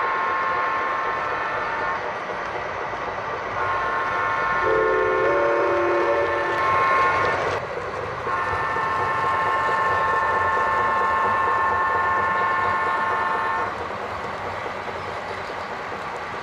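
Model train locomotive sound system sounding three long horn blasts, the second joined partway through by a lower-pitched chord, over the steady running noise of model trains on the track.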